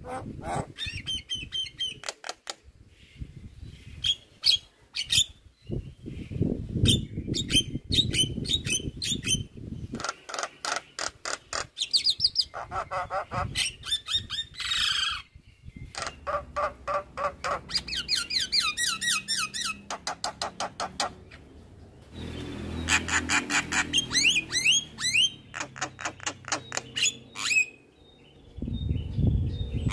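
Javan myna singing a long, varied song full of imitated phrases: rapid runs of short clicking notes, pitched whistles and harsh squawks, broken by brief pauses.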